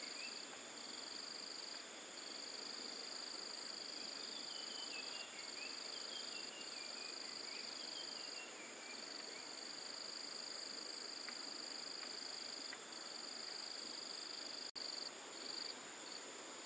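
Insects trilling steadily in two high-pitched layers, one continuous and one in long pulses broken by short gaps, over a soft hiss. A faint run of falling chirps sounds through the middle.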